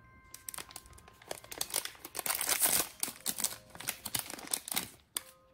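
Foil blind-box bag crinkling as hands work it open to take out the figure, an irregular rustle that is loudest about two to three seconds in and stops near the end.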